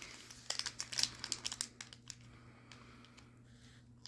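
Foil wrapper of a Pokémon Vivid Voltage booster pack being torn open and crinkled: a quick run of crisp crackles for about two seconds, then fainter, scattered rustles.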